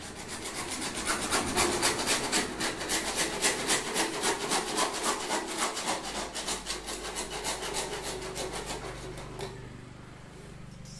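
Hacksaw cutting through grey PVC pipe with quick, even back-and-forth strokes that fade and stop near the end.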